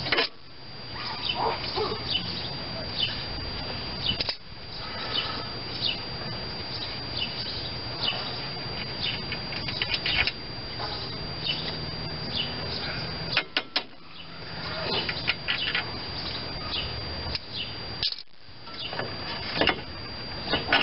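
Small birds chirping in the background, with occasional sharp clicks and clinks from hand work on a pickup's front wheel hub as the hub-and-rotor assembly is taken off the spindle.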